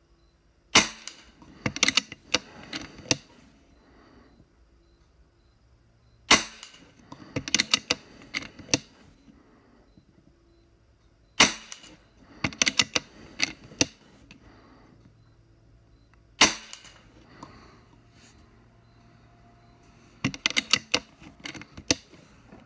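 Four shots from a scoped .25-calibre rifle, about five seconds apart, each followed by a quick run of metallic clicks as the action is worked to reload; another run of clicks comes near the end without a shot.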